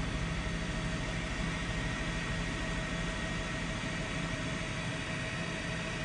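Helicopter running steadily, a constant engine whine with a fast rotor pulse beneath it.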